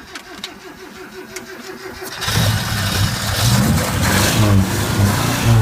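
Toyota 1000 estate's four-cylinder engine being cranked by the starter for about two seconds, then catching and running loud and uneven with blips of throttle. It is a first start after the car has stood unused for a long while.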